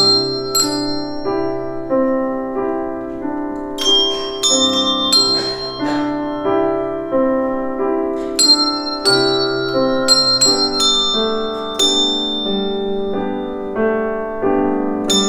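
Practice handbells playing a slow melody one struck note at a time, each note ringing on with high bright overtones, over a sustained piano accompaniment.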